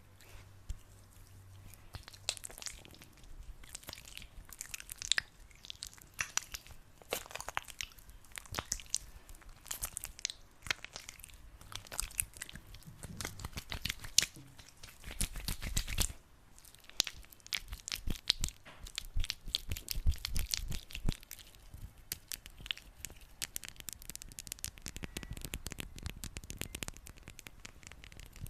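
Hands rubbing and squeezing sticky aloe vera gel: a dense, irregular run of wet, sticky clicks and crackles that thickens and thins, with a few soft low thumps along the way.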